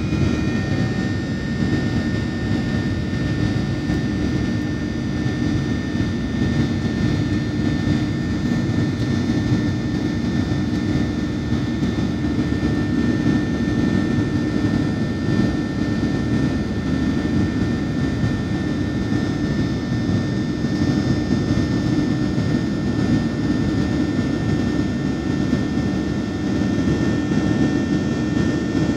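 Steady engine and airflow noise inside a passenger airliner's cabin in flight: a constant low drone with faint steady whining tones above it, unchanging throughout.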